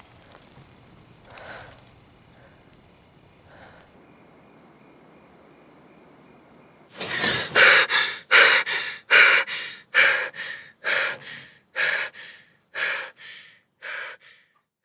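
A person breathing hard in ragged, heavy breaths that start suddenly about halfway through, some in quick in-and-out pairs, then grow weaker and further apart toward the end.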